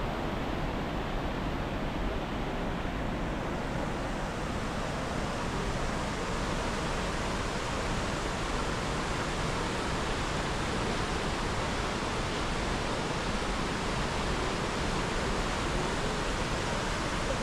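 Steady, even rushing noise with no break or change.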